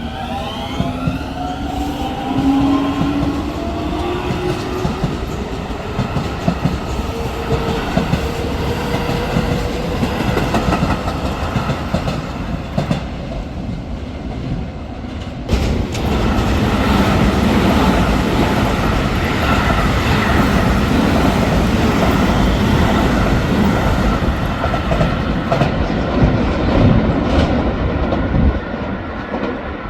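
Keio Line electric train running through, its traction motors whining and rising in pitch as it picks up speed, with wheels clattering over the rail joints. About halfway through the rumble suddenly grows louder and stays loud until near the end.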